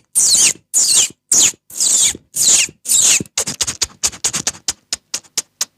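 A beatboxer imitating bird chirps with the mouth: a series of loud, high, falling chirps about one and a half a second, then a quicker run of short chirps that fades away near the end.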